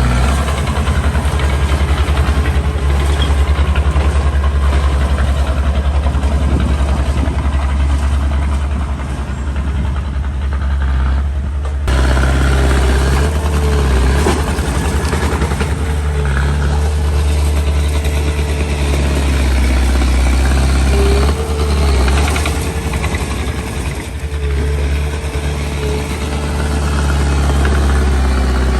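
Small bulldozer's diesel engine running steadily with a heavy low rumble while it works, with short high squeaks now and then. The sound changes abruptly about twelve seconds in.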